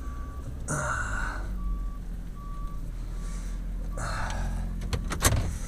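Vehicle reversing alarm beeping, a single steady tone repeated about once every 0.7 s, stopping about three and a half seconds in, over a low engine rumble. Two short hissing noises, about a second in and about four seconds in, and a few sharp clicks near the end.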